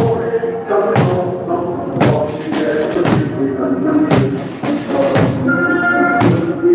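A troupe of Korean buk barrel drums struck together, one beat about every second, over a marching song with singing.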